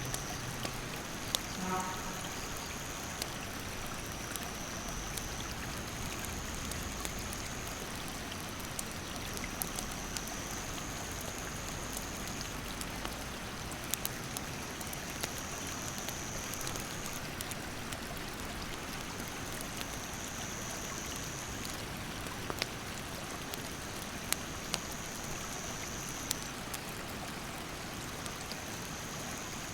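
A rushing mountain creek as a steady wash of water noise, with sharp snaps and crackles from a burning wood campfire scattered throughout. A high, even insect buzz comes and goes in stretches of a few seconds.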